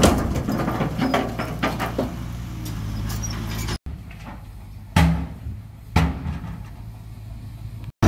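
Heavy earthmoving machinery working: a diesel engine running steadily under a string of metallic clanks and knocks. After an abrupt cut the engine is fainter, and two heavy bangs come about a second apart.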